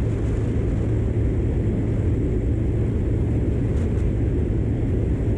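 A 100cc motorcycle engine running steadily while the bike is ridden fast, with a constant low engine hum under heavy wind rumble on the microphone.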